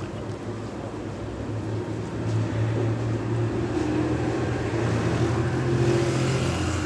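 An engine running nearby: a low, steady hum that grows louder about two seconds in and holds.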